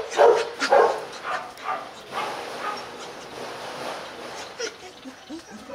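H'Mông bobtail dogs barking several times in quick succession, the barks growing fainter over the first couple of seconds, then a few short whines near the end. It is the sound of a female not yet letting the male near.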